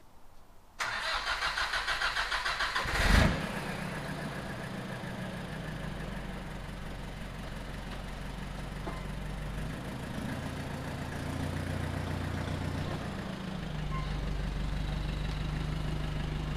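Nissan Navara D40's freshly rebuilt YD25 2.5-litre four-cylinder turbo-diesel cranking on the starter for about two seconds, catching with a loud burst about three seconds in, then idling steadily.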